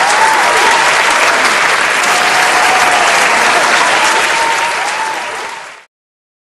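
Audience applauding, with a faint tune running underneath; the clapping cuts off abruptly near the end.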